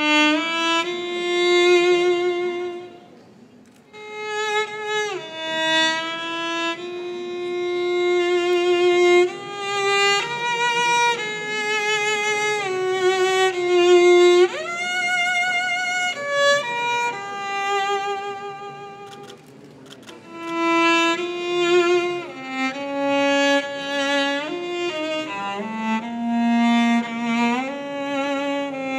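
Music: a slow solo melody on a bowed string instrument, with vibrato and slides between notes, dipping briefly about three seconds in and again around twenty seconds.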